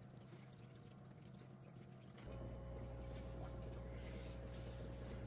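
Aquarium water dripping and trickling from air-stone bubbles and a filter. About two seconds in, a steady low hum with a faint steady tone comes in and the sound gets a little louder.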